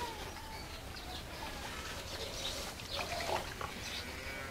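Small birds chirping intermittently over a steady low background hum.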